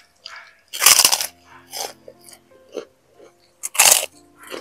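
Close-up eating sounds: a person chewing and gnawing beef bones and meat, with two loud crunches, about a second in and near the end, and smaller ones between.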